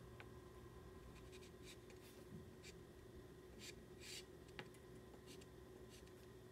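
Faint scratchy strokes of a pastel stick dragged across paper, a series of short marks a fraction of a second to a second apart.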